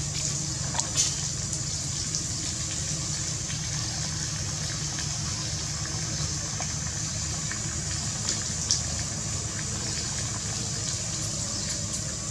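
Steady trickle of water running and dripping off the edge of a tarpaulin, with a few brief sharp taps about a second in and near nine seconds in.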